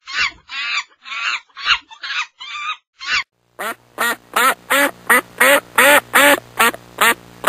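Duck quacking in two runs: first an uneven string of about seven quacks, then, after a short pause, about ten louder quacks evenly spaced at roughly two and a half a second over a faint low hum.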